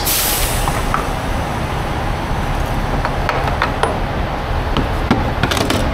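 Diesel pumping through a truck-stop pump nozzle into a tractor's aluminium fuel tank, a steady low rush and rumble. A few light clicks come near the end.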